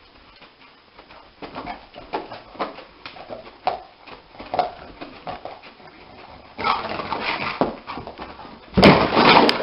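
Yellow Labrador-type dog whimpering and giving short muffled woofs in its sleep while its legs paddle as if running in a dream, followed by louder scrabbling as it lurches up, and a loud bumping scramble near the end as it runs into the wall.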